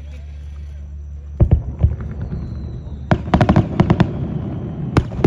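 Aerial fireworks shells bursting over a low rumble. A sharp bang comes about a second and a half in, then a rapid cluster of bangs and cracks around three to four seconds in, and another bang near the end.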